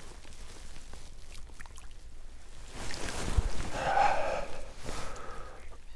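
Handling noise at the water's edge as a landed perch is lifted out: light rustling and clicks of dry reeds, then a bump against the camera about three and a half seconds in and a louder scuffling, breathy noise around four seconds in.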